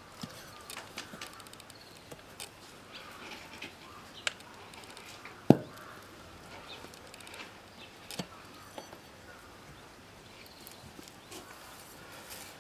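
Steel tire irons clicking and knocking against a spoked motorcycle rim while a new knobby tire is levered onto it, with one sharp, loud knock about five and a half seconds in.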